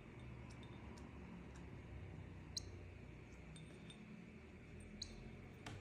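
Faint, scattered sharp clicks and ticks over a low steady hum: a parrot's beak working at berries as it eats.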